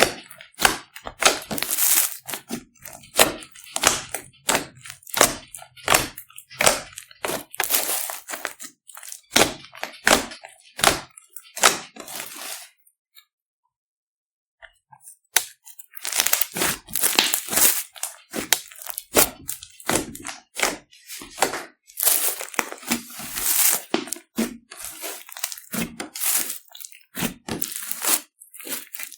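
Glossy slime being squished, stretched and stirred by hand, giving dense runs of crackling pops and clicks, with a pause of a few seconds near the middle.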